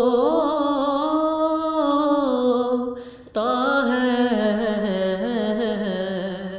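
A man's voice singing an Urdu naat with no instruments, drawing out the words in two long melismatic phrases that glide and waver in pitch, with a short breath about three seconds in.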